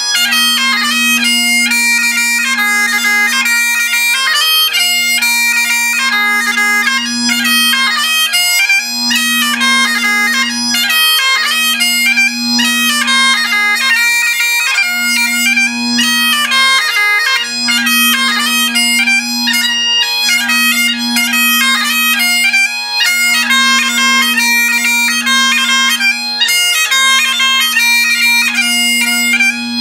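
Great Highland bagpipe played solo: a fast chanter melody over the steady hum of the drones, without a break.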